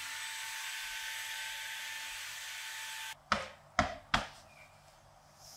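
Cordless handheld vacuum cleaner running with a steady whooshing whine, cutting off suddenly about three seconds in. Then three short thumps about half a second apart as a cushion is handled and set back on the sofa.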